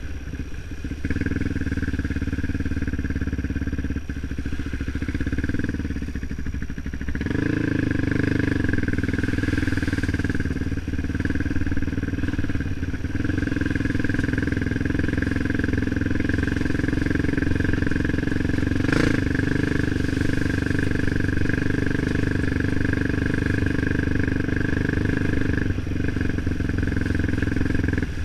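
Off-road motorcycle engine running steadily while riding, growing slightly louder about seven seconds in.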